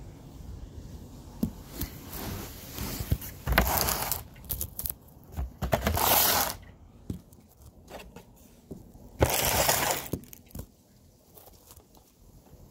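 Phone handling noise as the phone is set down and propped up: rubbing and scraping against the microphone in three bursts, with a few knocks, then settling quiet near the end.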